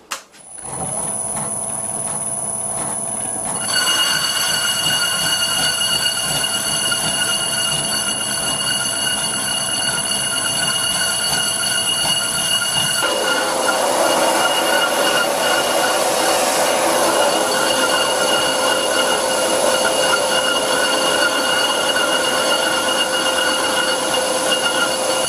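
Century-old bench lathe, its motor run through a frequency drive, turning a cast iron brake disc while a carbide insert skims its face. It starts about half a second in and gets louder near four seconds. A steady high whine runs throughout, and about halfway a rough squealing tone joins, typical of the tool chatter this setup suffers from.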